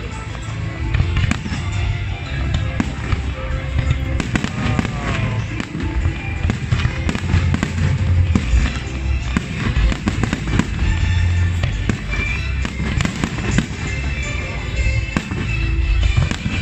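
Aerial fireworks bursting and crackling in a dense, continuous barrage, with music playing underneath.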